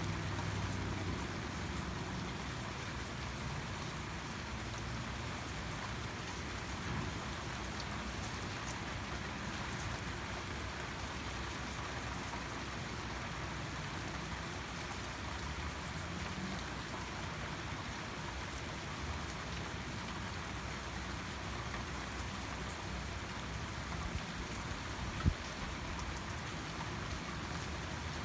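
Steady rain falling and pattering on surfaces, an even hiss with no let-up. One sharp knock stands out near the end.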